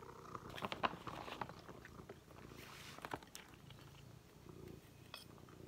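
Cat eating soft, moist food from a stainless steel bowl: irregular chewing and lapping clicks, with a low purr underneath.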